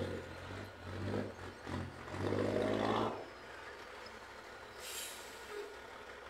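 Heavy diesel engine of a loaded log truck and its helping tractor labouring up a steep grade, revving in several surges that peak about two to three seconds in, then easing off. A short hiss comes about five seconds in.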